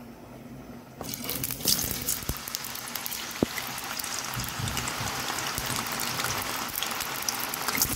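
Cubed potatoes deep-frying in hot oil in a pot: a dense, steady sizzle with crackling pops, starting suddenly about a second in.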